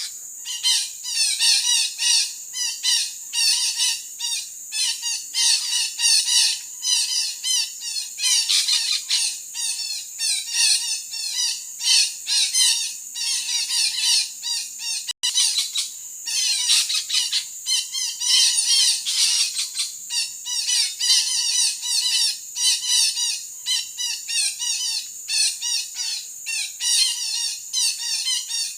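Red-breasted parakeets (betet) giving harsh squawking calls over and over in quick, continuous series.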